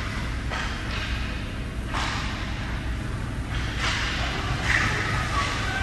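Ice hockey rink ambience: a steady low hum with scattered echoing thuds and scrapes of sticks, puck and skates from play at the far end of the ice.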